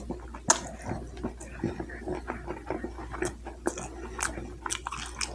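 Close-miked chewing and biting: wet, irregular mouth clicks and smacks as food is eaten, with one sharper click about half a second in.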